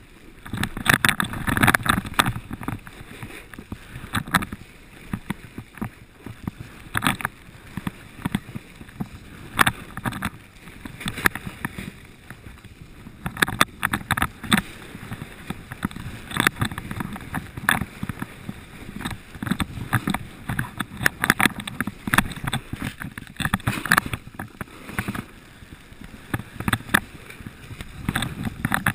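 Edges scraping and hissing across groomed snow during a downhill run, in irregular surges as the rider turns.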